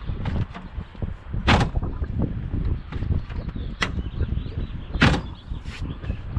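2006 Jeep Wrangler TJ door on new hinges being worked shut, with three sharp knocks: about a second and a half in, near four seconds, and about five seconds in, over a low rumble of wind on the microphone.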